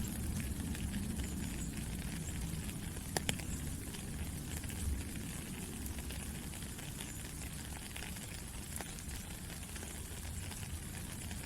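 Steady rain falling: an even hiss with scattered ticks of single drops and a low rumble underneath, and one sharper tick about three seconds in.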